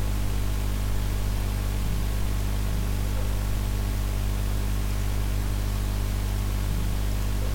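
Steady low electrical hum with an even hiss over it: the recording's background noise, with no other sound.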